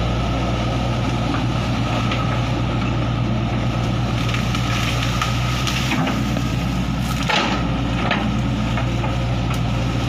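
Hitachi hydraulic excavator's diesel engine running steadily, with crackling and snapping from about four seconds in as its bucket pushes into trees and brush.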